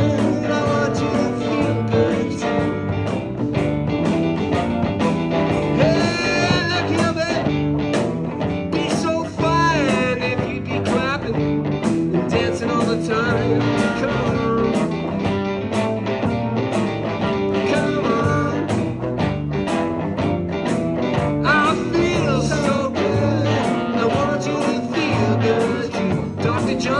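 Live garage R&B band playing an instrumental passage: electric guitars over keyboard and drums, with bending lead-guitar notes.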